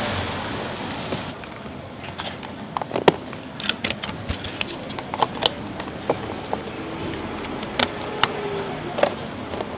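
Clear plastic lids being handled and pressed onto disposable takeaway food bowls: a string of sharp, irregular plastic clicks and crinkles. A steady hiss fades out in the first second or so.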